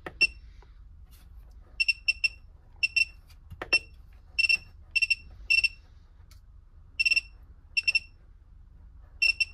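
Short, high electronic beeps from the buzzer of a Wanptek WPS3010H bench DC power supply as its voltage knob is turned. The beeps come irregularly, some singly and some in quick pairs, and each one audibly signals that the knob has been moved and the output setting changed.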